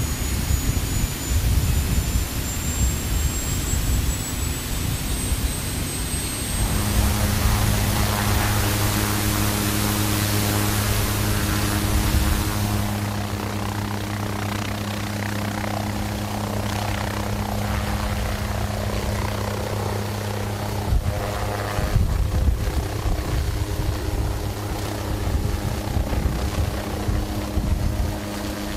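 MQ-8 Fire Scout unmanned helicopter's turboshaft engine and rotor running as it lifts off. A thin whine rises in pitch over the first few seconds, then a steady drone with a low hum runs on.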